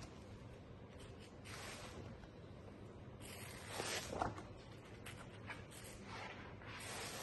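Large wallpaper sample pages being turned in a sample book: three swishes of paper, the loudest about four seconds in.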